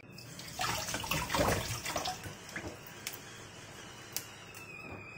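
Kitchen tap running into a stainless steel sink while leafy greens are rinsed under it, the water splashing hardest in the first two seconds, then running on steadily with a couple of small clicks.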